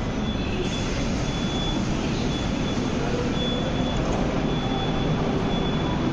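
Moscow Metro train running: a steady low rumble, with a thin high whine that comes and goes.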